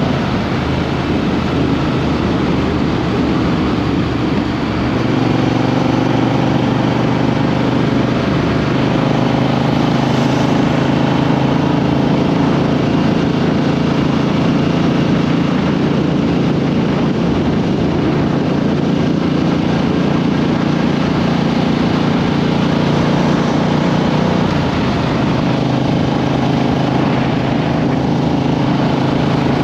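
Triumph Street Twin 900's parallel-twin engine running steadily, heard through a microphone under the seat, with its pitch shifting about five seconds in and again near the end.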